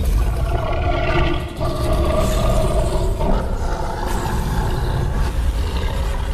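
Kaiju monster roar sound effect: one long, sustained growling roar over a heavy low rumble, its pitch shifting.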